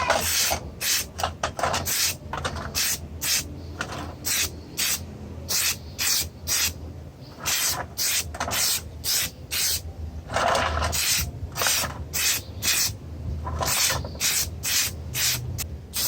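A part being rubbed by hand with an abrasive in quick back-and-forth strokes, about two a second, with a few short pauses.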